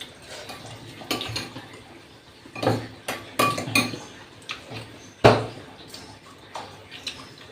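Cutlery clinking and knocking against a plate during a meal: a handful of separate clinks, the loudest about five seconds in.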